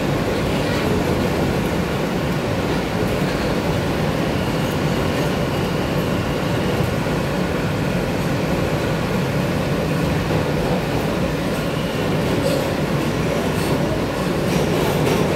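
Inside an R160 subway car on the move: the steady running noise of the train's wheels and running gear, even throughout.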